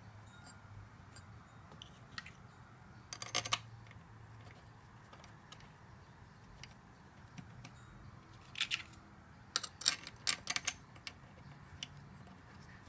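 Light metallic clicks and taps of small steel bolts being handled and started by hand into a transmission valve body. There is a short cluster about three seconds in and a run of sharper clicks between about eight and eleven seconds.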